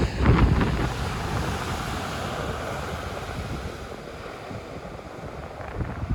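Sea waves on a beach: surf breaking, then its hissing wash slowly fading. Wind buffets the microphone in the first second and again near the end.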